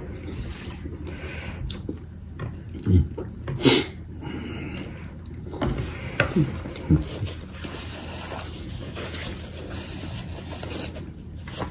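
Two people eating at close range: quiet chewing with a few short, sharp lip smacks and mouth noises scattered through, plus one or two brief hums.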